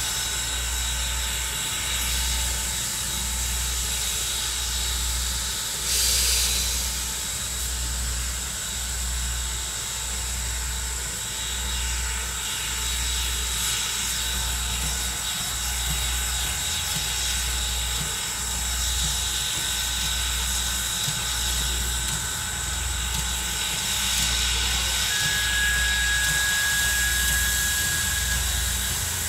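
Steam locomotive standing and idling, steam hissing steadily over a low throb that repeats about once a second. A brief louder hiss comes about six seconds in.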